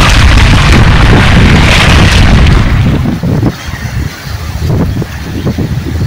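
Strong wind buffeting the microphone, loud and booming for about three seconds, then easing off into lighter, uneven gusts.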